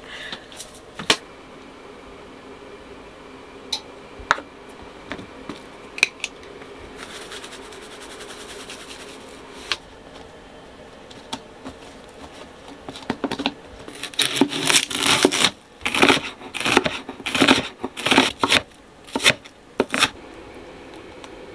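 Pizza dough being handled and pressed into a metal baking tray, with a few light knocks and soft rubbing, then a large kitchen knife chopping an onion on a wooden cutting board: a quick run of sharp chopping strokes, a few a second, through the last third.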